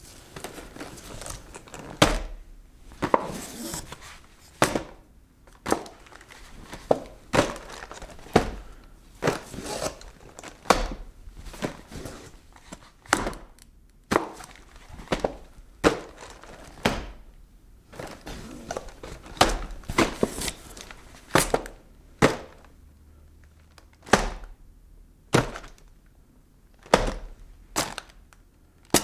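Cardboard boxes being handled and packed: a long run of dull thuds, about one a second and unevenly spaced, with cardboard scraping and rustling between the knocks.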